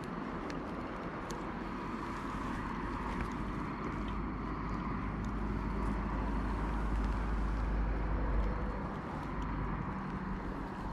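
A steady low rumble with a faint engine hum, like distant traffic, swelling in the middle and easing off toward the end. A few faint small ticks sit over it.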